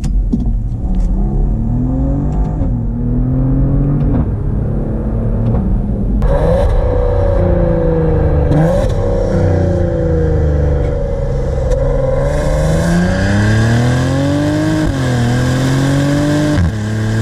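2019 Maserati Levante GranSport's twin-turbo 3.0-litre V6 accelerating hard through the gears, its pitch rising through each gear and dropping at every shift. Heard first inside the cabin, then from about six seconds in close to the exhaust tips, louder and rougher.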